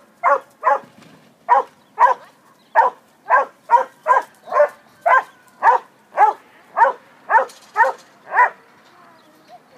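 A dog barking repeatedly, about two barks a second, stopping shortly before the end.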